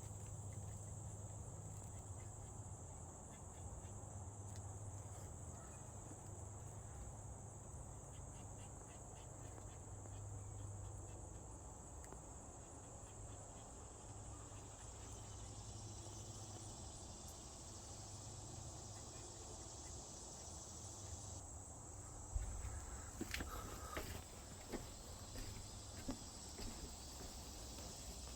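Steady, high-pitched chorus of crickets trilling without a break. From about three quarters of the way through, a few sharp knocks and rustles sound close to the microphone.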